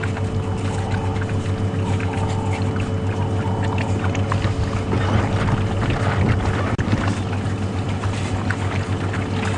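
African wild dogs lapping and splashing at a shallow muddy waterhole, with many small wet clicks that are busiest in the middle. Under it runs a steady low hum like an idling vehicle engine.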